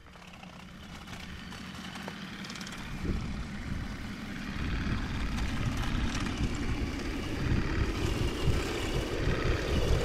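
An engine running steadily, growing gradually louder.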